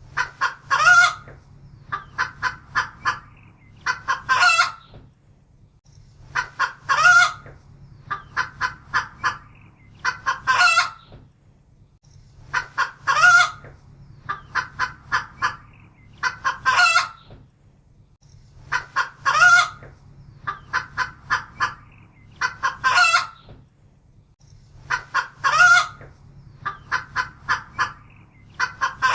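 A hen clucking in repeated phrases: a run of short, quick clucks followed by one longer, louder call, the phrase coming back about every three seconds. A faint low hum lies underneath.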